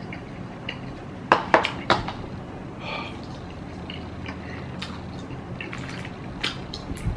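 Chopsticks and paper instant-noodle cups clicking and knocking against each other and the table while eating: three sharp clicks close together about a second and a half in, then lighter scattered taps.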